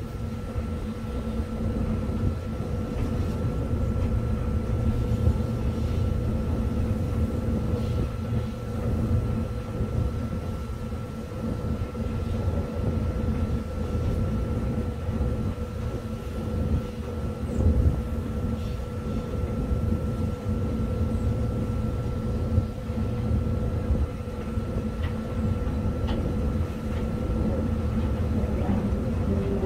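Cab of a JNR EF63 electric locomotive running along the track: a steady low rumble with a constant hum of several steady tones.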